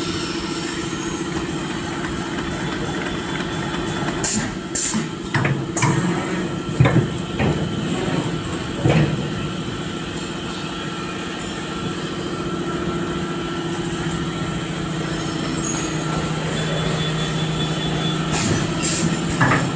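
An automatic disposable-glove making machine running: a steady mechanical hum with irregular clacks and knocks, clustered a few seconds in and again near the end.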